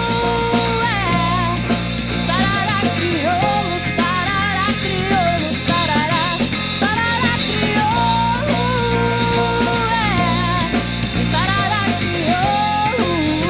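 Instrumental passage of a Brazilian band song: a lead melody slides and bends over a steady bass line and drums, with no lyrics.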